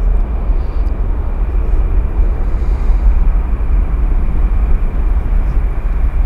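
An Airbus A340-300's four CFM56 jet engines at take-off thrust during the take-off roll: a loud, steady rumble.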